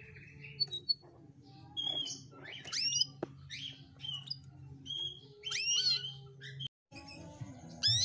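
Female domestic canary calling in short separate chirps, several sweeping quickly upward in pitch, with a few brief steady whistled notes, over a faint low hum. The sound cuts out for a moment near the end, then the chirping resumes.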